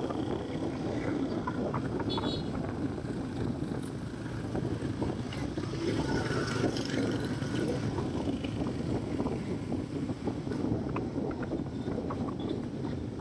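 Steady motorbike riding noise: a small engine running under a rush of wind on the microphone, with other motorbikes passing close by.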